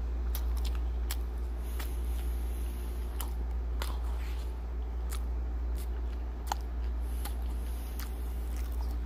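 Close-up chewing of a mouthful of double cheeseburger with pickles: scattered wet clicks and smacks of the mouth, over a steady low hum.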